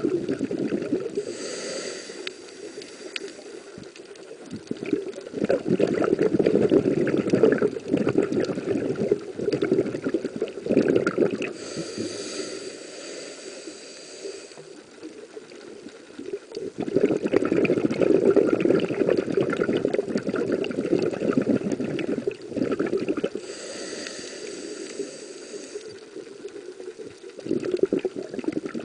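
Scuba regulator breathing heard underwater: three slow breath cycles, each a hissing inhale through the regulator followed by several seconds of rumbling exhaled bubbles.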